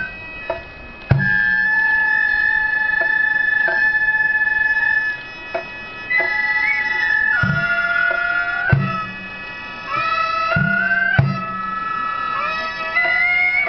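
Gagaku court music for bugaku dance. Wind instruments, among them the shō mouth organ, play long held notes that step from pitch to pitch over a sustained chord. There are several deep drum strokes, and the music drops back briefly a few times.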